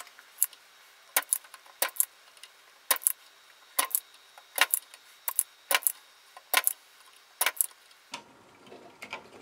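Spring-loaded desoldering pump (solder sucker) clicking over and over while the pins of a relay are desoldered from a circuit board: sharp snaps, many in close pairs, about one pair a second, stopping near the end.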